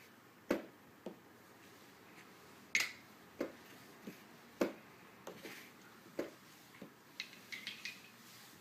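Chess pieces being set down on the board and chess clock buttons being pressed in a fast speed game: a dozen or so sharp clicks and knocks at uneven intervals, with a quick run of lighter clicks near the end.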